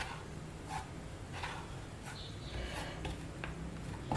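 Table knife spreading chocolate spread over a flour tortilla: several faint, soft scrapes at irregular intervals.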